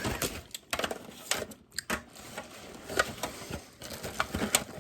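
Snow crab leg shells being cracked open by hand: irregular clicks, crackles and a few sharper snaps.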